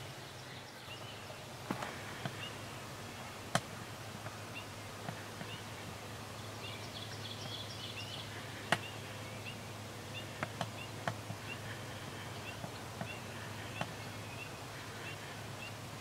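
Quiet outdoor ambience: songbirds chirping faintly now and then, with a quicker run of high twittering notes about seven seconds in, over a low steady hum. A dozen or so sharp single clicks come at irregular intervals, the loudest about nine seconds in.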